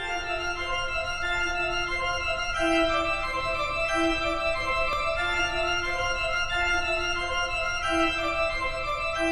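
Organ music: sustained keyboard notes and chords that change every second or so.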